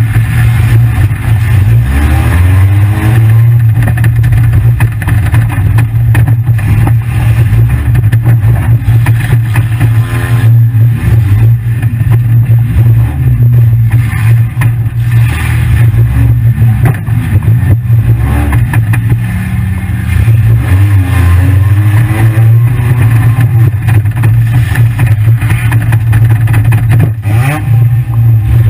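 A 1997 Honda Accord demolition derby car's engine, heard from inside the cabin, running loud and revving up and down again and again. A few short knocks come through, one about ten seconds in and one near the end.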